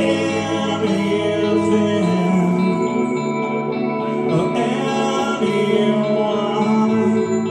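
A male singer sings live into a microphone over a pre-recorded backing track, both amplified through PA speakers.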